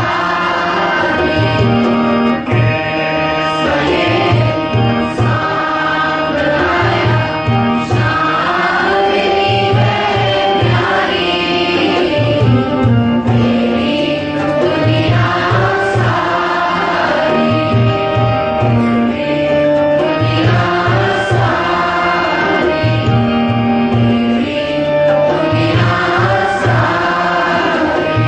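A morning prayer song: a sung melody over a steady tabla rhythm.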